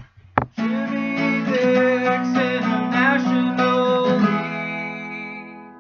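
Outro music, starting about half a second in and fading away over the last second and a half.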